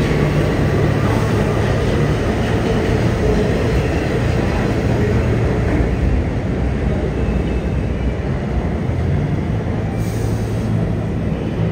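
Steady, loud rumble and hiss of a New York City subway train running on the rails through an underground station, with a low hum underneath.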